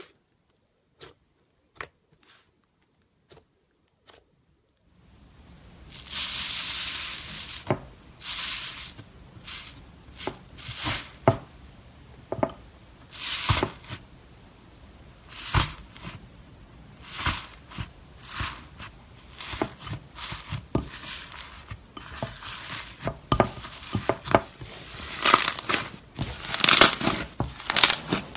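Fingers working slime: a few faint squishy clicks at first, then from about five seconds in a long run of crisp crunching and crinkling as fingers break into and press a bowl of white slime with a hardened crust.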